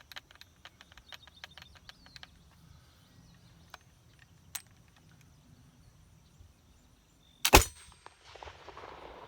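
A black-powder flintlock pistol fires once near the end: two cracks a split second apart, the second and louder being the main report, followed by a short rumbling tail. A run of light clicks comes in the first two seconds.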